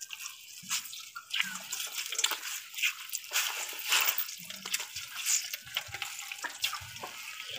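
Juice trickling and dripping into a pot as boiled santol pulp in a cloth is wrung out by hand, squeezing out its sour liquid. It comes in uneven splashes that rise and fall with each squeeze.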